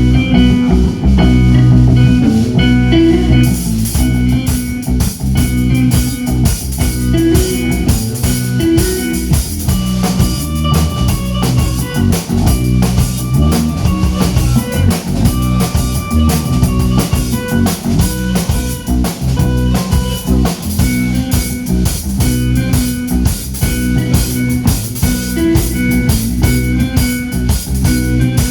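Live rock band playing an instrumental passage on electric guitar and drum kit, with no singing. Cymbals come in about three and a half seconds in, and the drums keep a steady beat.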